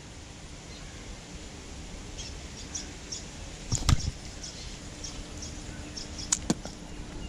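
Small birds chirping in short, high, repeated calls over quiet outdoor background, with a knock about four seconds in and two sharp clicks near the end.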